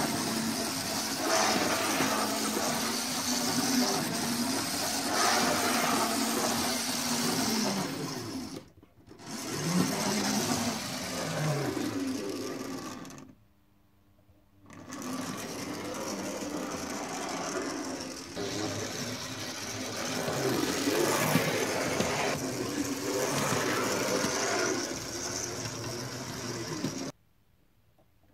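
Kitbuilt OO gauge white-metal 0-6-0 tank locomotive on a Tri-ang X04 motor chassis running round the track: a steady whirring motor, its pitch sliding up and down with speed. It dips briefly about nine seconds in, stops for a second or so around the middle, and stops about a second before the end.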